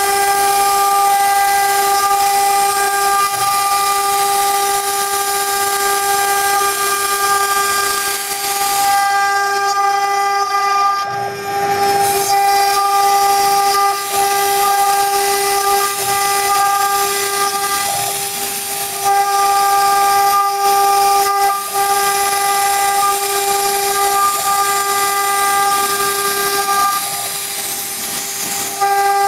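CNC router spindle running with a steady high whine over the hiss of its small bit cutting through an MDF sheet. The whine dips briefly a few times as the cut changes.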